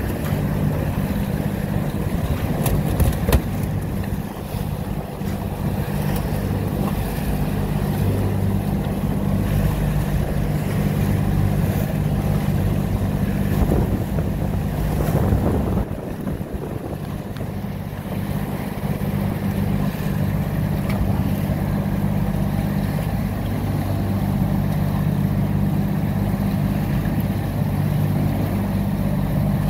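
Boat engine running steadily under way, with wind and water rushing past. A few sharp knocks about three seconds in.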